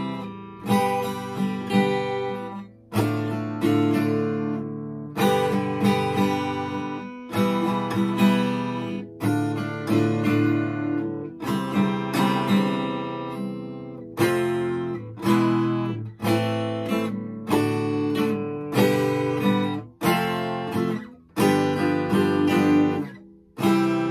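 Acoustic guitar strummed solo through an instrumental passage between sung verses: chords struck about once a second and left to ring, with a few brief drops in level between them.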